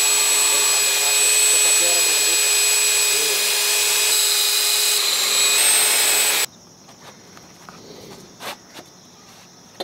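Power drill running steadily as it bores into a stone step, then stopping suddenly about six and a half seconds in, followed by a few light knocks.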